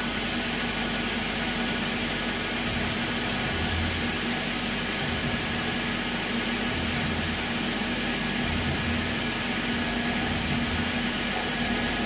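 Flood coolant spraying from a CNC mill over the workpiece as it drills: a steady hiss that comes on suddenly at the start. Under it runs the even hum of the running machine, with a low, uneven rumble.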